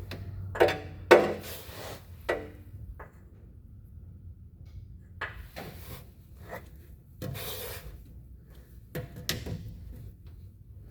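Channel-lock pliers knocking and scraping against a stuck spin-on oil filter as they are worked to loosen it: a few sharp metallic knocks in the first two seconds, then further scraping and clatter.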